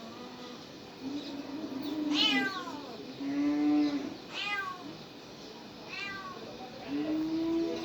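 Cats and kittens meowing in turn: three short, high mews that fall in pitch, alternating with lower, drawn-out meows.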